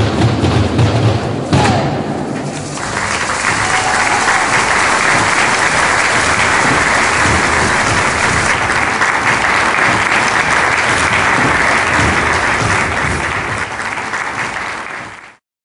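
Stomp-style percussion on buckets and barrels, ending with a loud final hit about a second and a half in. Then steady audience applause, which cuts off abruptly near the end.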